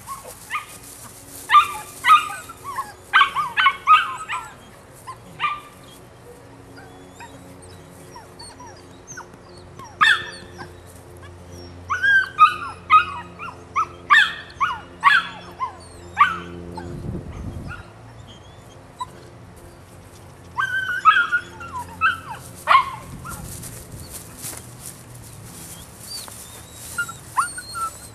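Nine-week-old Belgian Malinois puppy yipping and barking in quick strings of short, high calls, in three bouts with pauses between, excited during tug play.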